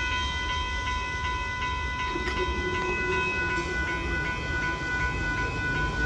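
Railroad grade-crossing warning bell ringing steadily in repeated strikes while the crossing signals are active, over a constant low rumble.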